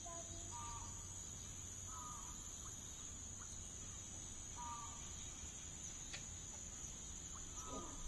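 Quiet background: a steady high-pitched whine, with a few faint short chirps and light ticks.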